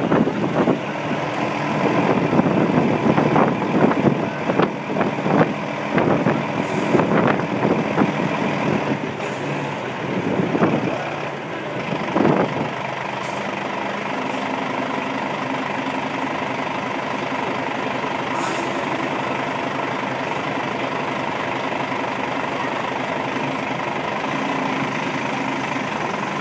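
Vehicle engine heard from inside the cabin, rolling slowly with many knocks and rattles for about the first twelve seconds, then idling steadily once stopped.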